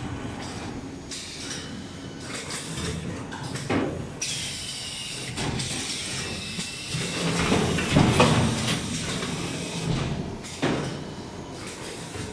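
Automatic pineapple peeling machine running: a steady mechanical hum with some hiss as it spins and peels a pineapple, broken by a few sharp clunks of the mechanism, the loudest about eight seconds in.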